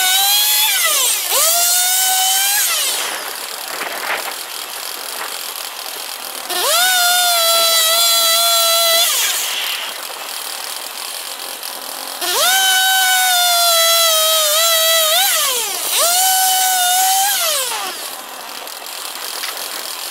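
The petrol engine of a swing-blade circular sawmill revs up to full speed and holds there for a few seconds while the blade cuts ash, then drops back to idle. This happens three times, with brief dips in pitch under load.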